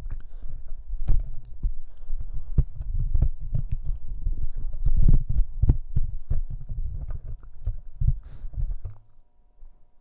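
Boston Terrier puppy chewing and gnawing on a pair of headphones: a busy run of clicks and low thumps that stops about nine seconds in.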